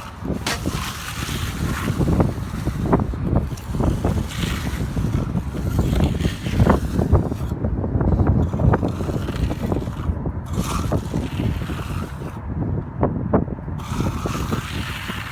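Steel finishing trowel scraping and sliding over wet concrete in repeated short strokes while smoothing the slab edge, with wind rumbling on the microphone.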